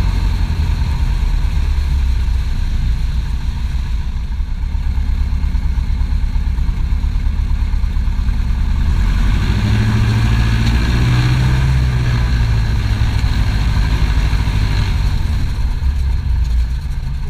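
Piper PA-18 Super Cub's piston engine and propeller running at low taxi power. Power is raised for about five seconds near the middle, as the plane taxis up from the water onto the ramp, then eased back.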